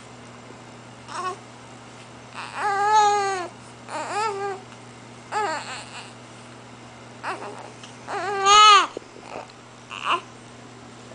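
A baby fussing: several short, whiny cries that rise and fall in pitch, with breathy sounds between them, the loudest about eight and a half seconds in.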